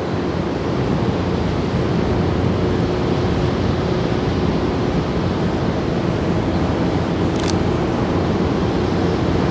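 Steady drone of a small passenger ferry's engine under way, with a low hum, mixed with wind and water noise. A short, thin high chirp sounds about seven and a half seconds in.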